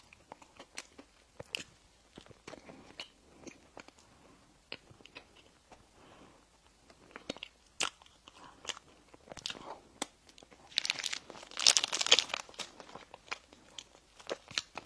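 Close-up eating sounds of bread and pastry: scattered small mouth clicks and smacks of chewing, with a dense burst of crunching about eleven seconds in, the loudest part.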